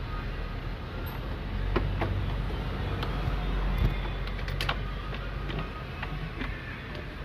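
Washing machine motor and gearbox turning, a low hum that swells in the middle and eases off again, with scattered clicks and knocks.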